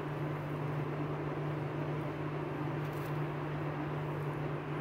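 Steady low hum with an even background hiss, unchanging, with no distinct knocks or clicks.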